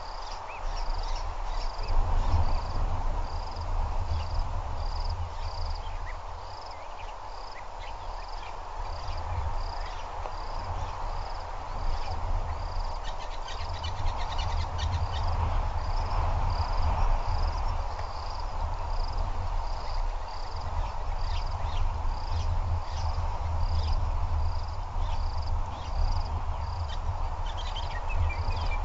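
Insects chirping in an even rhythm, a high pulse just under twice a second, over a low rumble.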